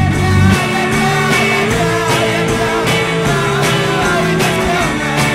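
Rock music with guitar, a steady drum beat and possibly a singing voice.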